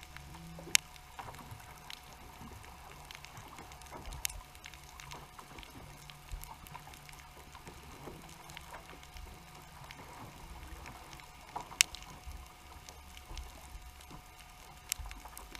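Underwater ambience picked up by a GoPro on the sea floor: a low steady hum with a faint steady tone, broken by four sharp clicks, the loudest about twelve seconds in.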